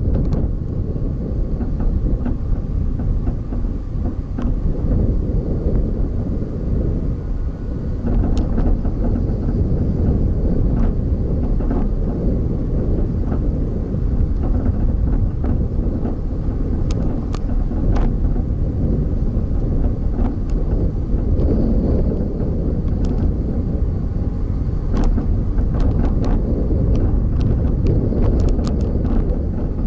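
Steady low rumble of a vehicle driving along a road, with wind buffeting the microphone and scattered sharp clicks, a cluster of them near the end.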